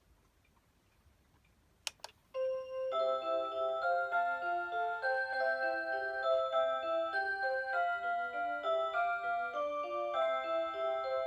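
Rhythm Clock Aria Cantabile melody alarm clock: after a sharp click about two seconds in, its Aurora Sound chip starts playing an electronic melody in several voices, a chiming tune over a stepping lower accompaniment.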